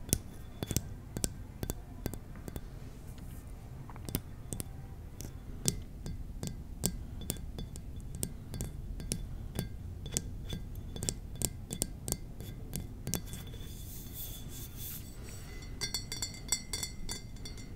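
Irregular tapping on small glass mini-bar bottles, each tap leaving a short, high glassy ring. The taps come faster, with more ringing, in the last couple of seconds.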